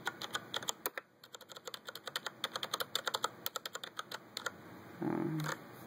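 Typing on a Logitech G710+ mechanical keyboard with Cherry MX Brown switches: a fast, uneven run of key clicks, with a short pause about a second in.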